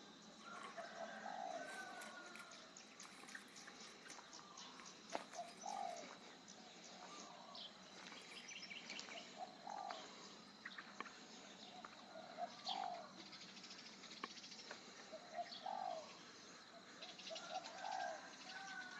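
A dove cooing, the same short low phrase repeated about every three seconds, with small birds chirping and a steady faint high tone.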